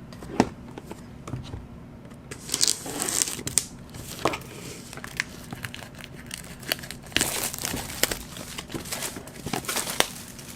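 An album's packaging being handled and unwrapped: crinkling and tearing rustles in bursts, a few seconds in, again around the middle and near the end, among small sharp clicks and knocks.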